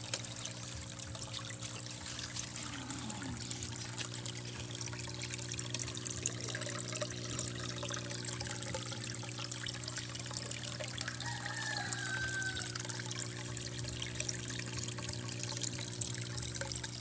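Water splashing and trickling in a small fish tank, stirred by a running submersible aquarium pump, over a steady hum.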